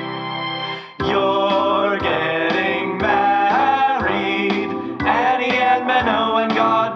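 A song: a held chord for about the first second, then men singing over a backing with a steady beat.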